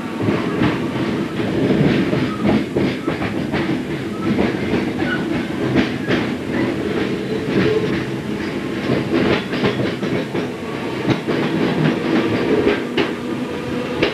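Electric multiple-unit train running on old jointed track, heard from the driver's cab. Its wheels click irregularly over un-welded rail joints above a steady rumble and hum of the motors and running gear.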